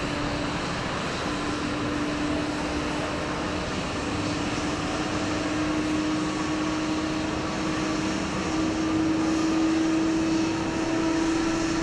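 Jet airliner engines running with a steady rush and a hum that rises slightly in pitch, growing a little louder near the end.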